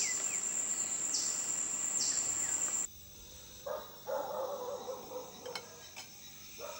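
Insects trilling in a steady high pitch, with a few falling whistle-like calls over them. About three seconds in it cuts off abruptly to quieter night sounds with a few short wavering calls.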